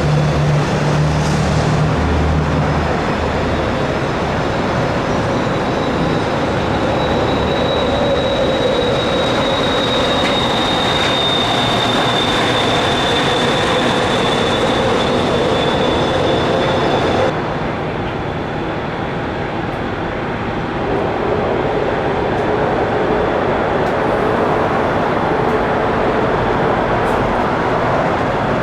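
Boeing KC-135R's CFM F108 turbofan jet engines running at taxi power: a steady roar with a high fan whine. About 17 seconds in, the whine cuts off suddenly and the sound drops a little before it builds again.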